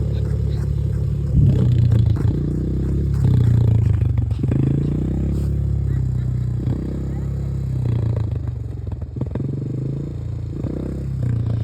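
A small vehicle's engine running, its pitch shifting up and down a little as it is driven.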